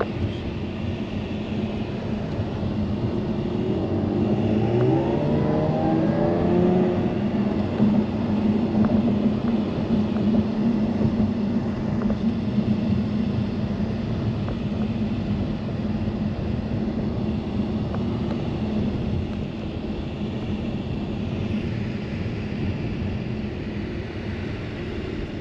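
2017 Jaguar F-type's front-mounted engine accelerating, its pitch rising for a few seconds about four seconds in, then running steadily at speed.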